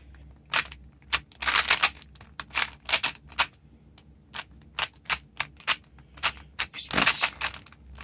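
Plastic 3x3 Rubik's Cube being turned by hand: quick, irregular clicks and clacks of its layers snapping round, in short flurries with brief pauses between.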